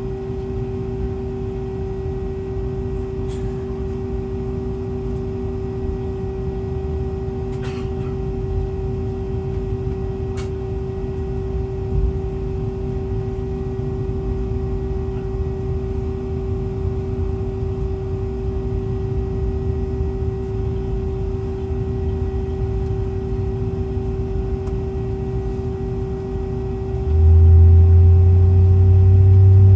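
Steady hum inside the cabin of a parked Boeing 757-200, a constant mid-pitched tone over a low rumble from the aircraft's onboard systems. There are a few faint clicks, and near the end a louder low drone lasts about two and a half seconds.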